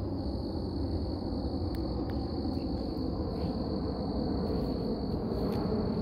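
Crickets chirring in a continuous high-pitched drone over a steady low rumble, with a couple of faint clicks.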